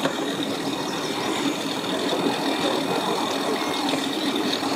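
Engine idling steadily.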